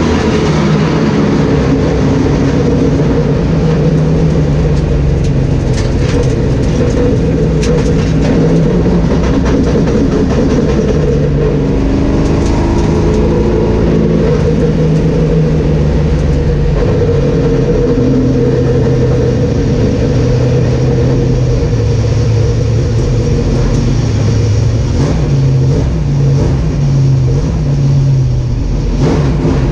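Sportsman stock car engine heard from inside the cockpit, running loud with its pitch rising and falling as the throttle changes, most clearly about twelve seconds in.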